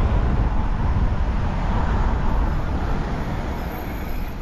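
Camper van driving, with the steady low rumble of engine and road noise heard from inside the cab, easing off a little near the end.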